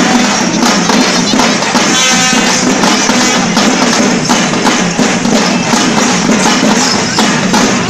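Loud live traditional festival music, dominated by fast, dense drumming and jingling percussion, with a brief held pitched note coming through about two seconds in.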